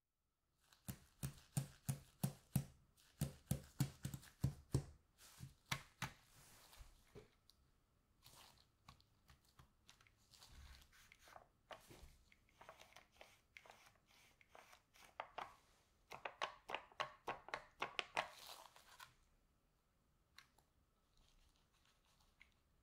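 A plastic yogurt cup with a foil lid being handled in disposable gloves: a run of sharp clicks and taps, several a second, in the first few seconds, softer scattered rustles in the middle, and another dense run of clicks later on.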